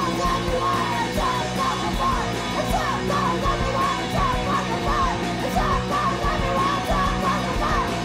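Punk rock song at full band volume: distorted electric guitars and drums, with a voice singing or shouting over them.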